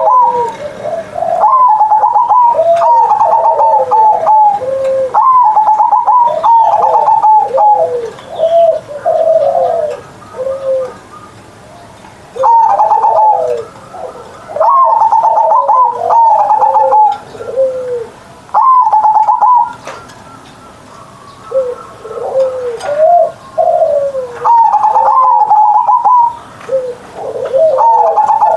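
Zebra dove (perkutut) singing: repeated phrases of rapid, stuttering coos that fall in pitch at the end of each phrase, pausing briefly twice.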